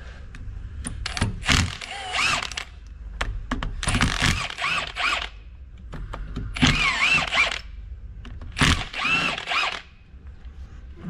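Cordless impact tool running in four bursts of about a second each, loosening the bolts of the end cap on a Toro TX1000 tandem hydraulic pump. Each burst carries a whining motor pitch over the rattle of the impact.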